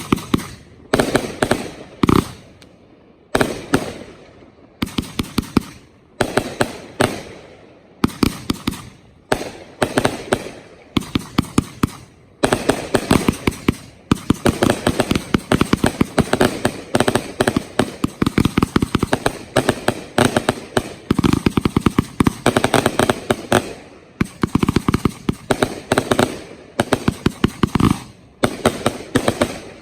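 Professional 1.3G fireworks going off: a dense, continuous run of sharp pops and bangs in quick succession, in clusters broken by short lulls every few seconds.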